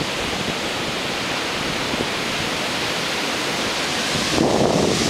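Ocean surf breaking on a sandy beach: a steady rushing hiss that swells louder about four seconds in.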